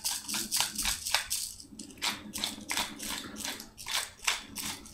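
Hand-twisted pepper mill grinding peppercorns: a run of short grinding strokes, about four or five a second, with a brief break about one and a half seconds in.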